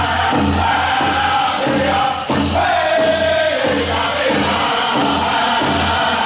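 Powwow drum group singing in high, held unison lines over a big drum struck in a steady, even beat: a chicken dance song.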